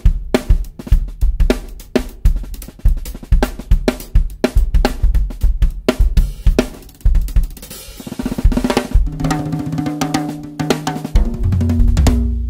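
Acoustic drum kit played: a busy groove of kick, snare, hi-hat and cymbal strokes, then a fill across high-tuned toms that ring with clear, almost marimba-like pitches. Near the end a low drum rings out.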